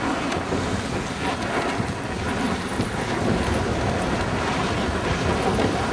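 Steady rushing noise of a husky-drawn dog sled moving over snow: the sled gliding along the trail, with wind blowing on the microphone.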